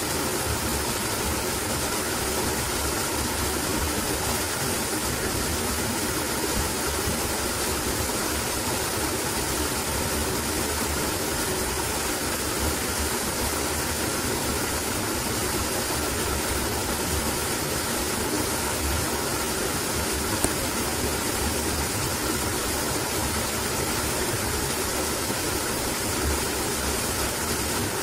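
Steady, even rushing noise of the forest surroundings, with one brief click about twenty seconds in.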